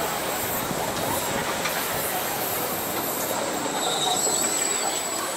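Vekoma motorbike launch coaster train rolling along its steel track, a steady noise of wheels running on the rails.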